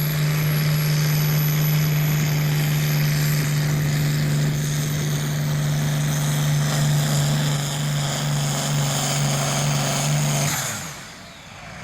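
International Harvester farm tractor's engine running hard and steady under full load, pulling the weight sled. About ten and a half seconds in, the engine is throttled down and a high whine falls away as the run ends.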